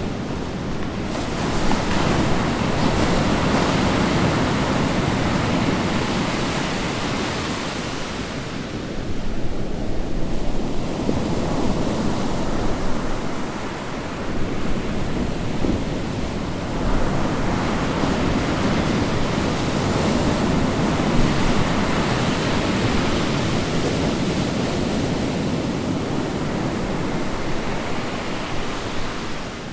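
Ocean waves breaking and washing on a shore in a steady hiss of surf, swelling and easing in slow surges several seconds long.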